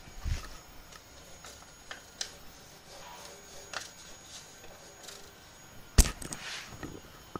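Scattered light taps, clicks and paper rustles from hands handling a sheet of leveling paper on a 3D printer's bed, with one sharp click about six seconds in.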